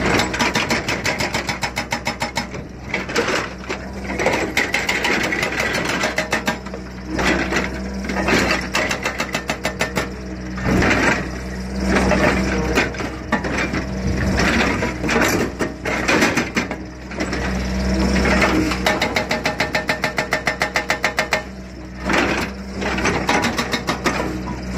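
RHB80 silenced-type hydraulic breaker on a 6–9 tonne excavator hammering rock in repeated bursts of rapid, evenly spaced blows, each lasting a couple of seconds, with the excavator's engine running steadily underneath and between bursts.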